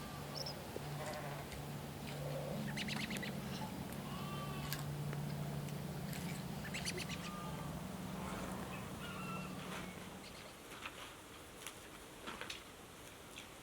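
Small livestock bleating, mixed with short bird chirps, over a steady low hum that stops about ten seconds in.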